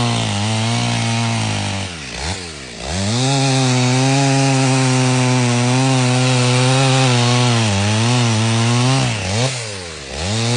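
Stihl chainsaw cutting through oak logs, its engine running hard under load. Twice the engine note drops sharply and climbs back up, about two seconds in and near the end.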